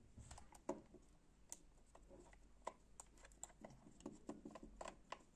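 Faint, irregular small clicks and ticks of a screwdriver tip working a small screw out of a plastic G300s mouse shell.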